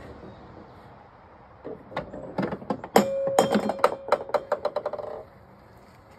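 Golf ball dropping through a wooden ball-climber maze game and bouncing to rest: a run of hard knocks and clacks, loudest about three seconds in, coming ever faster and fainter until it stops about five seconds in.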